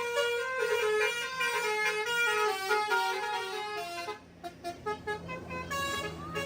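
Telolet bus horn: a multi-tone horn playing a quick tune of stepping notes for about four seconds, then breaking off. A low steady hum and a few more horn notes follow.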